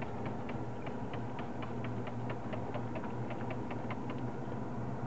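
Hand trigger spray bottle being pumped rapidly, a quick run of short sharp squirts at about four a second that stops a little past four seconds in, over a steady low hum.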